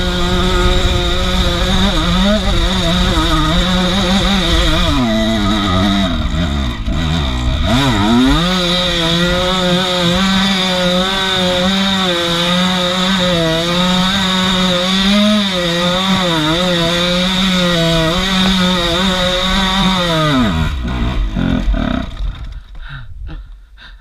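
Beta 200 RR two-stroke enduro motorcycle engine revving hard and held at high revs. The revs dip and climb again about five to eight seconds in. Near the end they fall away and the engine sound dies down.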